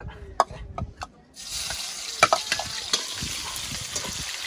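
A few knocks of a utensil, then about a second in pork meets hot fat in a pan and starts sizzling steadily as it is stir-fried, with occasional clacks of the spatula against the pan.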